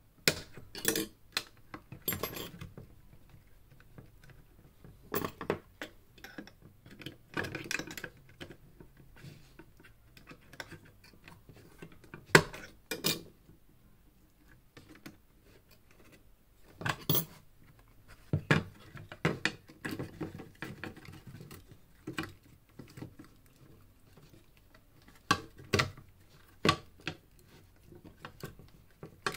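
Tools and small hard parts being handled during a studio-monitor teardown: irregular clicks, taps and clinks in scattered clusters, with short quiet gaps between them.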